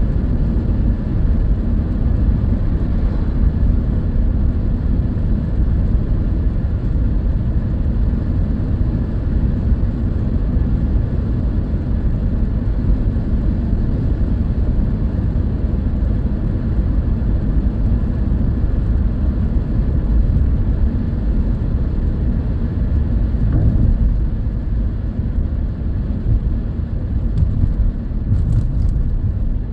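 Steady low rumble inside a moving car's cabin at motorway speed: tyre and engine noise.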